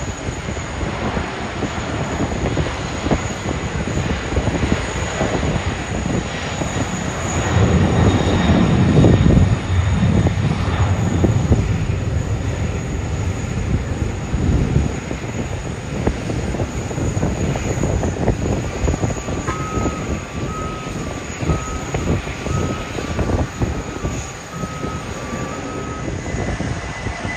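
Jet airliner engines rumbling, swelling loudest about eight to ten seconds in. A faint two-note alternating beeping sounds in the second half.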